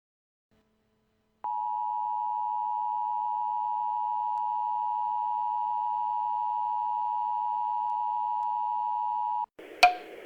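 Emergency Alert System attention signal: the two-tone alarm of 853 and 960 Hz sounding steadily, which announces an emergency message. It starts about a second and a half in, runs about eight seconds and cuts off suddenly, followed near the end by a sharp click and a low hiss.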